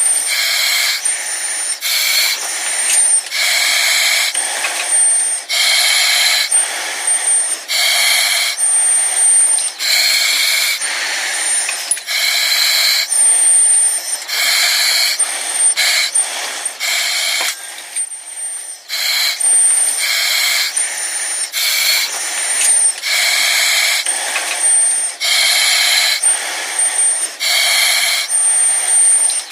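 A person breathing through an oxygen mask: a continuous series of noisy breaths in and out, each lasting under a second, with a thin high whistle showing between some of them.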